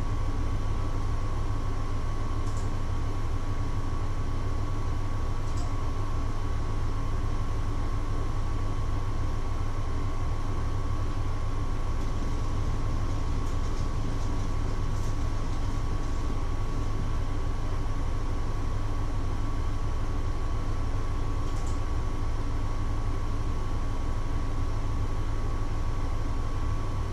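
A machine running with a steady low hum, a constant thin whine and an even rush of noise. The level drops away right at the end.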